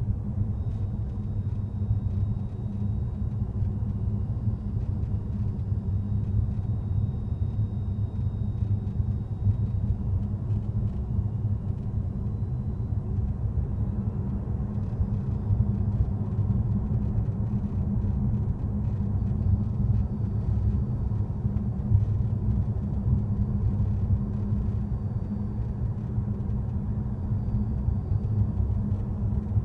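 Inside a Tesla Model S on the move: a steady low road rumble, with a faint high-pitched whine that comes and goes. The whine is the "wiiii" the owner hears at under 50 km/h and under 10 kW, and faint squeaks or ticks are scattered through.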